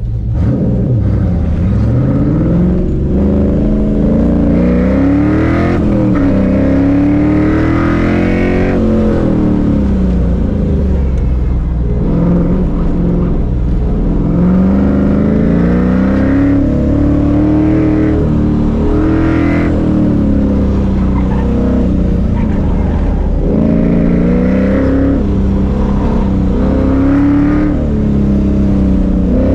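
Third-generation Chevrolet Camaro engine heard from inside the cabin during an autocross run. The engine note climbs and drops repeatedly as the driver accelerates and lifts between corners.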